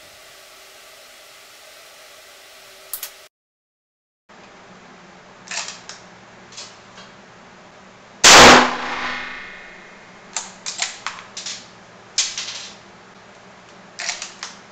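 A single shot from a scoped Lee-Enfield .303 British rifle fitted with a muzzle brake tuner, about eight seconds in, its report ringing and dying away over about two seconds in an indoor range. Sharp metallic clicks come before it, and several clusters of clicks and clacks follow as the bolt is worked.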